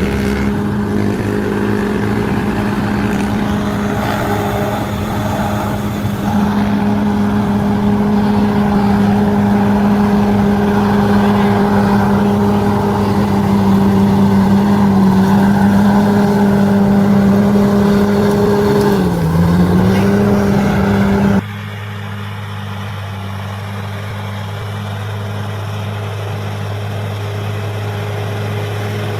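Bulldozer's diesel engine running steadily under load. Its pitch sags briefly about two-thirds of the way through and then recovers. Near the end the sound cuts abruptly to a quieter, lower steady engine note, like idling.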